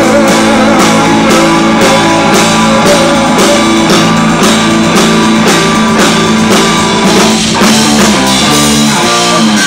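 Live rock band playing an instrumental passage: electric guitar and acoustic guitar over a drum kit keeping a steady beat of about two hits a second.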